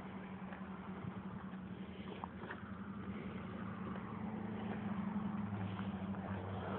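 A car engine idling steadily: an even, low hum.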